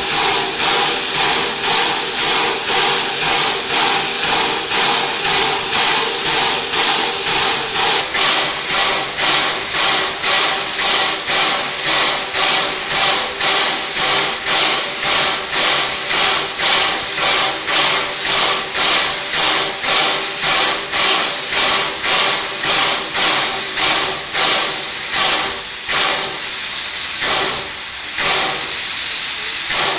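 Narrow-gauge steam locomotive standing in steam, with a continuous loud hiss and rhythmic puffs of exhaust steam from the chimney, about three every two seconds.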